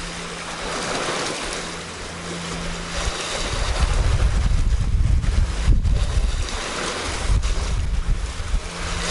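Wind buffeting the microphone over the wash of sea waves on a rocky shore, the low rumbling gusts growing stronger from about three seconds in.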